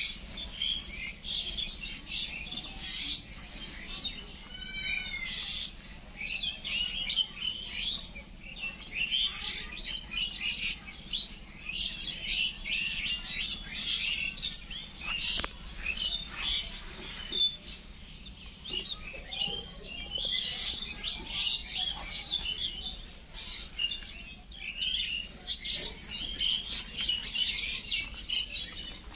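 Small birds chirping and twittering continuously, with many short calls overlapping. A quick run of falling notes comes about four to five seconds in, and a couple of sharp clicks sound about halfway through.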